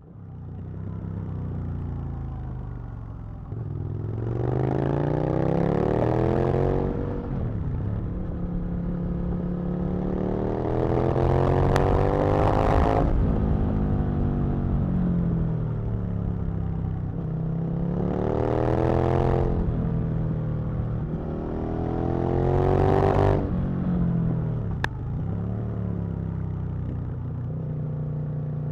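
Aprilia RSV Mille's 60-degree V-twin engine under way. Four times it pulls up in a rising rev and then drops back, with steadier running in between.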